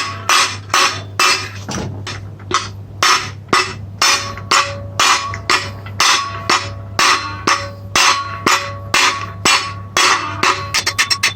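Hammer blows striking a metal part, about two a second, each with a short ringing note. Near the end comes a quick run of lighter taps.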